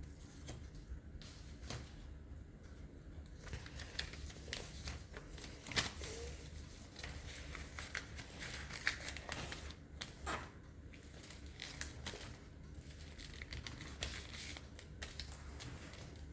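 A sheet of origami paper being folded and creased by hand: irregular rustling and crinkling with short sharp crackles, the loudest about six and nine seconds in.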